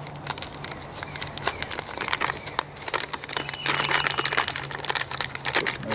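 MRE beverage pouch crinkling as its top is folded over and it is handled, with the irregular crackle densest about halfway through.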